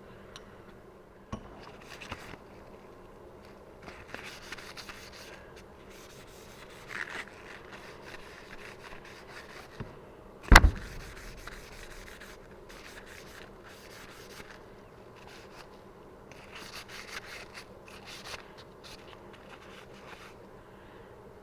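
Irregular strokes of rubbing and scraping on a surface, worked by hand, with one sharp knock about halfway through.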